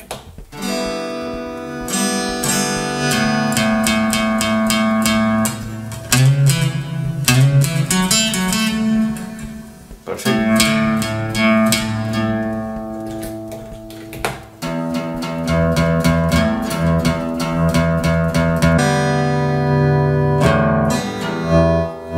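Acoustic guitar music with strummed chords.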